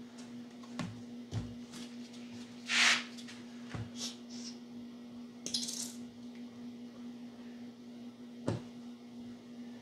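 Workshop handling sounds while a glue bottle is worked over a wooden jig: several light knocks and clicks, a short scuffing rustle about three seconds in that is the loudest sound, and a brief hissing squeeze of the glue bottle a little after the middle. A steady hum sits underneath.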